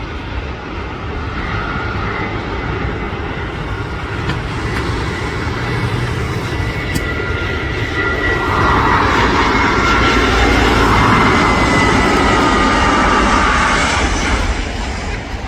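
Passenger airliner's engines passing close: a loud rumble that builds to a peak about two-thirds through and eases near the end, with a whine gliding slowly down in pitch as the aircraft goes by.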